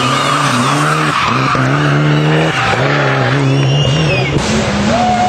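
Rally car driven hard through a tight bend: the engine revs rise and fall with brief breaks for lifts and gear changes, and the tyres squeal.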